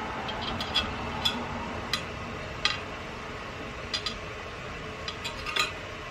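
Irregular light metallic clicks and taps of a valve-stem fishing tool against the wheel rim as it is worked through the valve hole to catch an inner tube's valve stem, over a steady low hiss.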